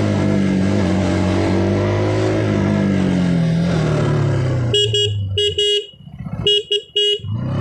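KTM RC 200's single-cylinder engine through its stock exhaust, running at a steady cruising speed with its pitch easing slightly. About five seconds in the engine note drops away and a horn beeps four short times.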